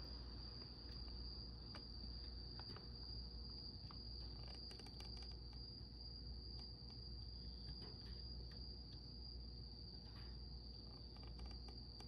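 A cricket trilling steadily in one high, unbroken tone, with a few faint clicks and a low hum beneath it.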